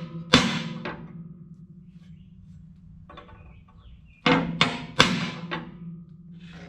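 Hammer striking a center punch on steel plate to mark bolt holes for drilling: two ringing blows near the start, then after a pause three or four quick blows about four seconds in.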